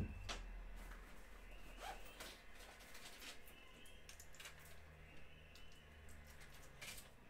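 Quiet room with one dull thump right at the start, then scattered faint clicks and rustles and a faint low hum for a couple of seconds midway.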